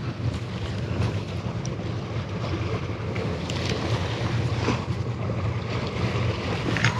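Wind buffeting the microphone as a steady low rumble, over the wash of sea waves against a tetrapod-lined seawall.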